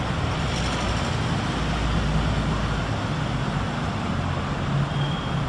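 Steady background rumble and hiss, the low rumble swelling briefly about two seconds in.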